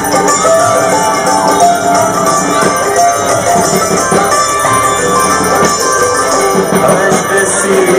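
Music: a melody line over steady jingling, tambourine-like percussion.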